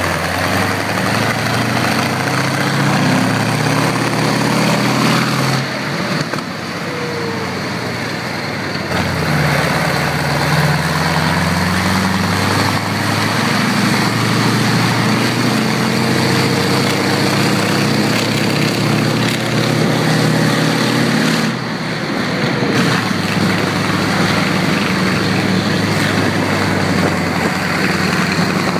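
M4 Sherman tank's engine running as the tank drives on the road, its note rising and falling as it speeds up and slows. The sound changes abruptly a few times.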